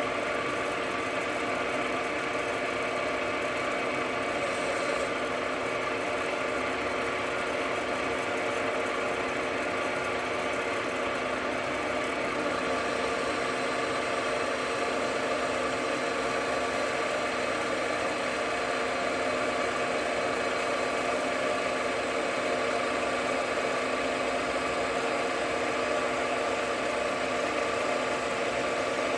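JFMT metal lathe running steadily under power while turning a light cut, about half a millimetre in-feed, on a workpiece held on a centre. Its motor and gearing make a steady hum with several fixed tones.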